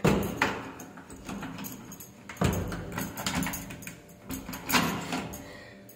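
A series of irregular knocks and clatters, with rustling between them; the sharpest knock comes right at the start and others about 2.5 s and near 5 s in.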